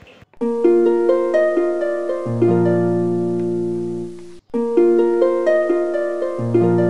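Background music of plucked harp-like notes ringing on in a short repeating phrase. The phrase breaks off about four seconds in and starts over.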